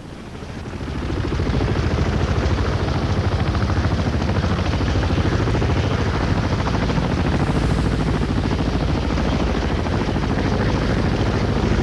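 Helicopter sound effect: rotor blades and turbine fading in over the first second or two, then running steadily with a rapid even blade chop.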